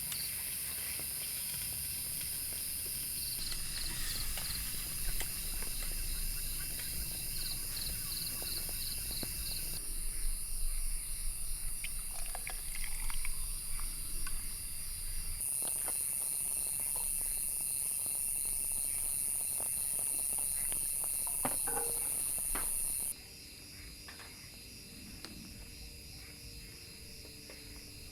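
Insects chirping and buzzing in a steady high-pitched chorus with a quick pulsing rhythm, over a few faint clicks. The ambience changes abruptly several times and turns much quieter about 23 seconds in, as if separate recordings are joined.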